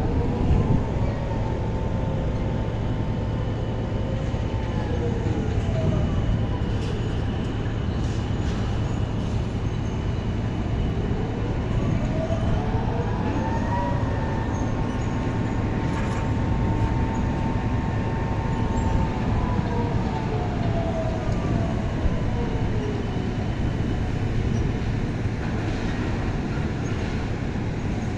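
Heavy engine or motor rumble with a steady hum underneath. A whine rises in pitch, holds, then falls back, twice: once at the start and again in the middle.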